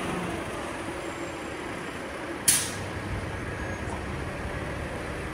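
Steady rumble of city traffic, with a short sharp hiss of air about halfway through: a bus's air brakes releasing.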